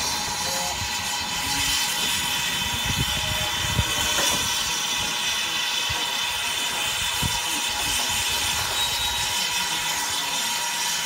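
Small saddle-tank steam locomotive giving off a steady hiss of escaping steam as it moves slowly along the track, with occasional low knocks and clanks underneath.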